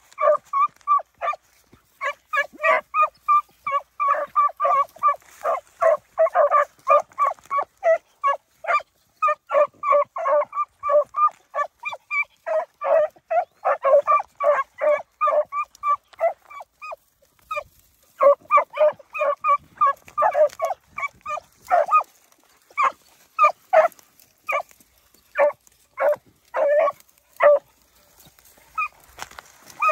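Beagles barking in quick runs of short, clipped barks, several a second, broken by brief pauses, the longest about halfway through. The hounds are giving tongue as they trail a rabbit.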